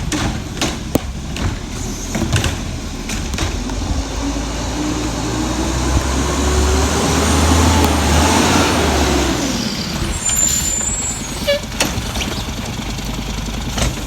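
Heil garbage truck's engine revving up over several seconds, then dropping back. A short hiss follows, which could be an air release. Sharp ticks throughout, consistent with rain hitting the plastic bag around the phone.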